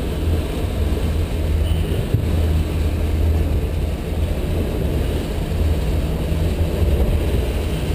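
Volvo Penta V8-270-C-A 5.0-litre V8 sterndrive engine running steadily under way at a little over 1,000 RPM, a constant low drone mixed with the rush of water against the hull.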